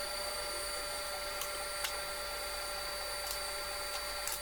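Table saw running steadily with its blade spinning free, a constant hum and whine, with a few faint ticks.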